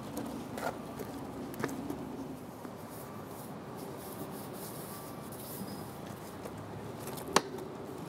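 Steel trowels scraping and spreading high-strength bedding mortar on a brick manhole course. There are a few light clicks and a sharp knock near the end, over a steady low hum.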